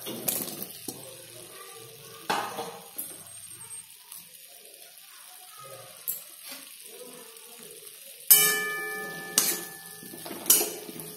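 Boiled potato and mushroom pieces tipped into a metal kadai of cooked-down spice paste, then stirred with a metal spatula that scrapes and strikes the pan. A few sharp clanks come through; the loudest, about eight seconds in, rings on like struck metal, and two more follow within about two seconds.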